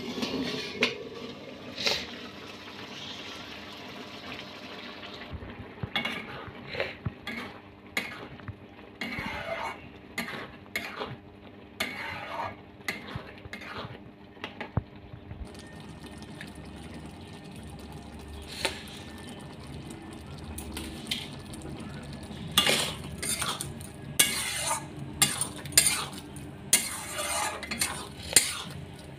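A metal spatula scraping and clinking against a kadai as egg tadka is stirred. The strokes come in irregular bursts and grow busy and louder near the end.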